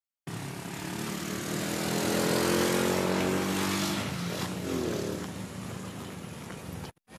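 An engine running steadily, loudest about two to three seconds in, then easing off before cutting off suddenly near the end.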